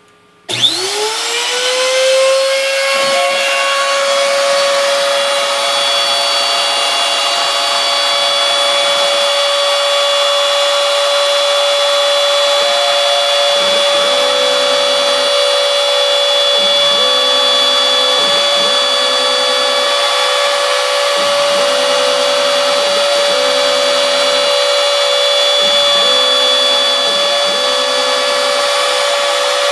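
A Ryobi router serving as the spindle of a CNC mill switches on about half a second in, its whine rising quickly to a steady high pitch as it spins up, then runs while cutting florist foam. From about 14 seconds in, a lower hum comes and goes in short spells as the machine works through the cut.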